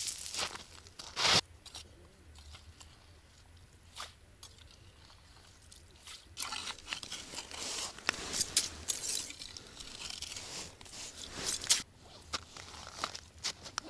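Crunching and scraping on ice and crusted snow as a man moves about and works beside a freshly drilled ice-fishing hole. A sharp knock comes about a second in, and a denser run of crunches follows from about halfway to near the end.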